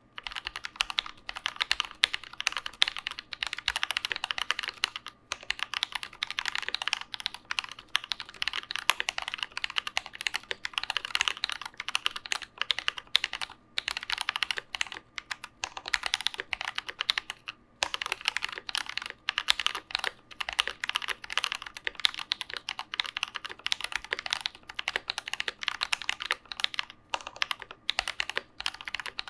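Continuous fast typing on a mechanical keyboard fitted with lubed Tecsee Kingfisher PME linear switches: a dense run of keystrokes that starts suddenly, broken by a few brief pauses.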